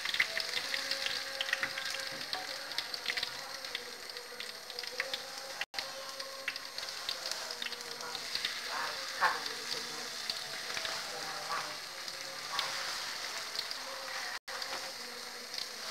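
Corn fritter batter deep-frying in hot oil in a wok: a steady sizzle with dense crackling.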